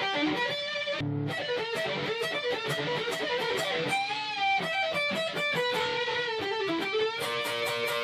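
Instrumental electric guitar music, a fast melodic lead of quick changing notes with a few bent notes over a backing.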